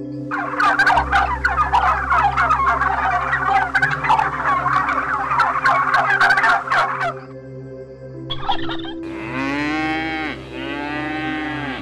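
A flock of domestic turkeys gobbling all together for about seven seconds. After a short pause a cow moos twice, two long calls that rise and fall.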